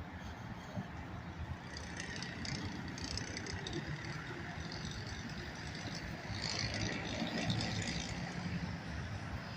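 Steady traffic rumble, with brief higher crackly sounds about two seconds in and again around six to eight seconds.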